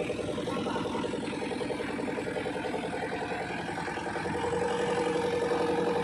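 A heavy vehicle's engine idling steadily, with a steady higher hum joining about four seconds in.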